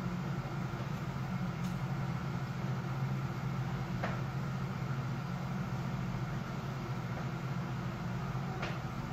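Steady low background hum with a couple of faint clicks.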